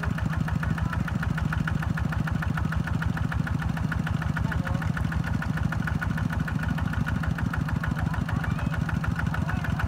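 Kubota ZT120 single-cylinder diesel engine on a two-wheel farm tractor running steadily, with a fast, even chugging pulse.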